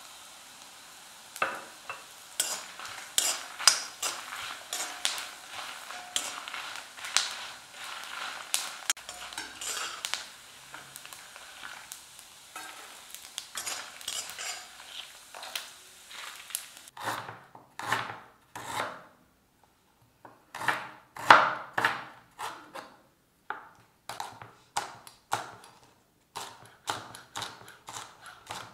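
Food frying with a steady sizzle in a pan while a utensil stirs and scrapes it, with many quick clinks against the pan. About two-thirds of the way through the sizzle stops abruptly, and a run of separate, louder knocks and scrapes follows.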